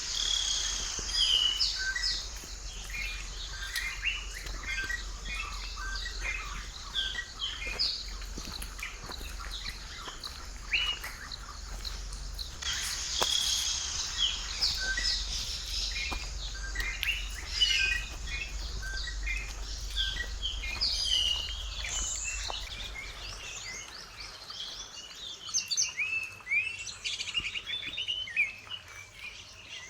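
Many forest birds calling at once, a dense overlapping mix of short chirps, whistles and trills, over a steady high hiss of insects.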